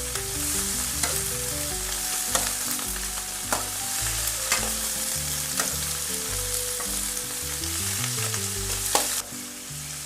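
Food frying in hot oil with a steady sizzle, and a utensil clicking against the pan every second or so as it is stirred. The sizzle drops off suddenly about nine seconds in.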